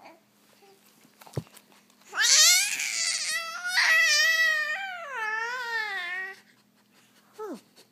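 Infant squealing and cooing in delight, a long run of high, wavering calls over about four seconds, with a single short knock before it and a brief falling squeal near the end.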